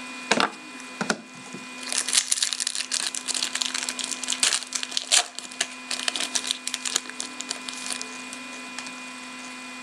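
Foil wrapper of an Upper Deck SPX hockey card pack crinkling and crackling as it is torn open by hand, a dense run of crackles lasting about six seconds. Two sharp knocks come just before it, near the start.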